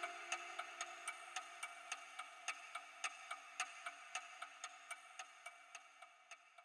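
Steady, rapid clock-like ticking, about four ticks a second, over a held ringing chord, the whole slowly fading out.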